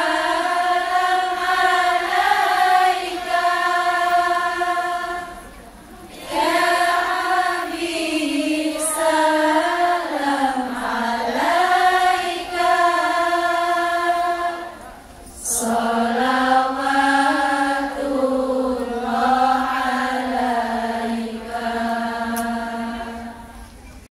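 Many voices singing a sholawat, a devotional song in praise of the Prophet, in unison. The phrases are long and drawn out, with two brief breaths between them, about a quarter and about two-thirds of the way through.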